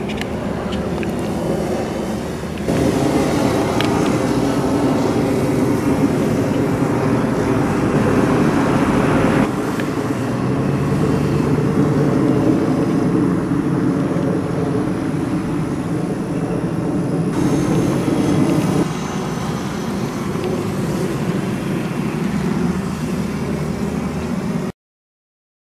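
Electric motor and propeller of an RC P-51 Mustang model plane droning steadily in flight. The level steps up and down abruptly several times and cuts off suddenly near the end.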